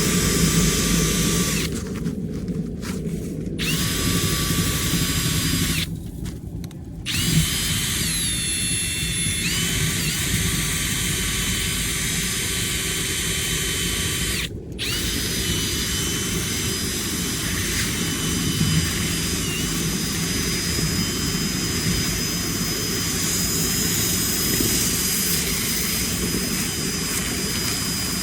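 Drill spinning a rotary dryer-vent cleaning whip through the duct. The drill stops briefly about three times and winds back up each time, over the steady noise of a vacuum pulling suction on the vent.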